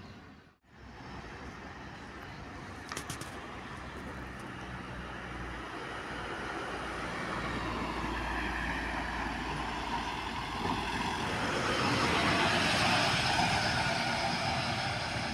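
City bus driving past close by, its engine and tyre noise building to a peak near the end and then easing off.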